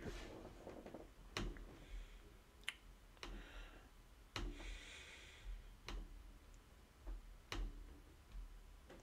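Computer mouse clicking: about five faint single clicks, one every second or two.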